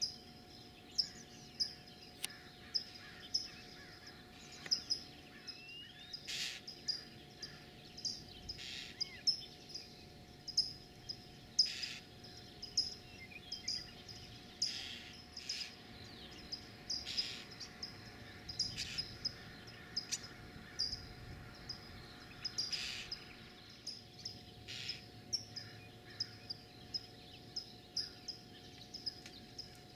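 Barn owl owlets giving harsh hissing begging calls, each about half a second long, a few times over the stretch. Short high chirps repeat about once a second throughout.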